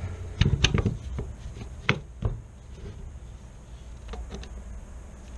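Wooden stock of a Marlin Camp 9 carbine being slid back onto the action by hand. A cluster of knocks and clicks comes in the first second, two sharp clicks about two seconds in, and a few faint taps near the end.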